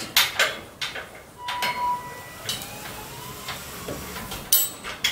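Dual rubber jockey wheel scuffing on concrete as it swivels under the caravan's weight while the caravan is turned: a series of short scrapes and clicks, with a brief squeak about one and a half seconds in.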